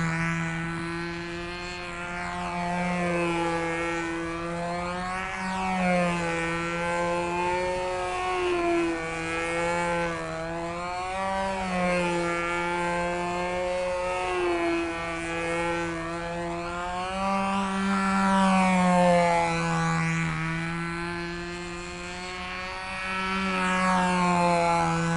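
Small glow-fuel two-stroke model engine of a Sig Magnum control-line stunt plane running steadily at high speed in flight, a buzzing note whose pitch wavers slightly up and down while its loudness swells and fades every few seconds as the plane circles.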